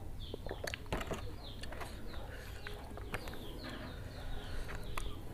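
A bird's short high chirp, falling in pitch each time, repeated about three times a second, behind sharp clicks and knocks of a glass being set down and of hands eating rice and noodles from a paper wrapping, the loudest knock about a second in.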